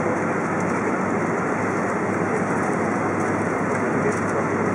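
Steady cabin noise inside a Boeing 777-200 taxiing: an even rush of engine and air-conditioning noise over a steady low hum.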